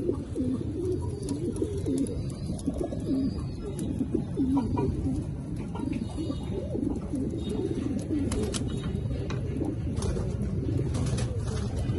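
A flock of racing pigeons cooing together in their loft, a continuous low burbling of overlapping coos, with a few light clicks in the second half.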